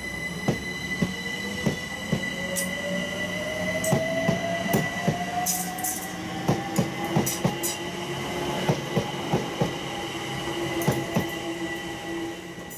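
London Overground Class 378 electric multiple unit running past along the platform: steady high-pitched whine from the traction equipment, with a second whine rising steadily in pitch, over a string of sharp wheel clicks on the rail joints.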